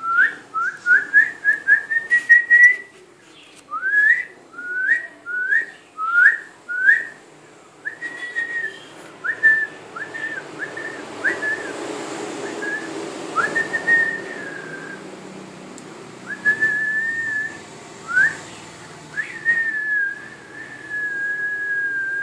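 A person whistling: a quick run of short rising whistled notes, then fewer, longer held notes toward the end. A soft rustling of bedding runs under the whistles in the middle.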